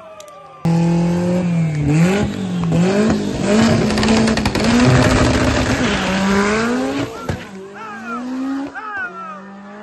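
Drag race cars launching and accelerating down the strip, loud from about half a second in, the engine pitch dipping and climbing again as they shift gears, then fading after about seven seconds.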